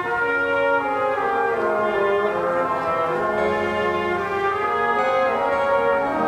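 Slow classical church music played by brass and orchestra: sustained chords whose notes shift every second or so.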